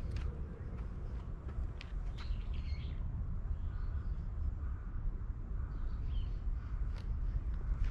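Small birds chirping a few times over a steady low rumble, with a few soft clicks.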